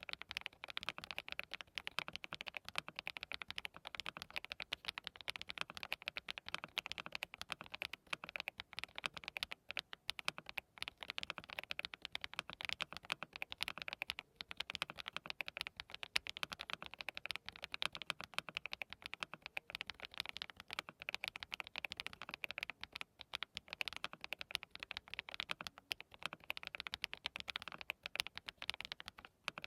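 Fast, continuous typing on a DT35 87-key custom mechanical keyboard fitted with hand-lubricated HMX Cheese linear switches, a dense run of keystroke clacks broken by a few brief pauses.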